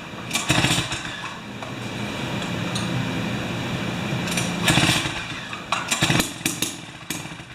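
Jiffy 30 ice auger's 3 hp Tecumseh two-stroke engine running unevenly, surging louder several times and then dropping away near the end.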